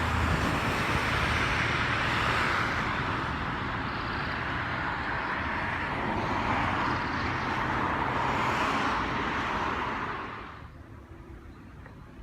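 Road traffic passing close by: the tyre and engine noise of cars swells and fades, then drops away fairly suddenly near the end.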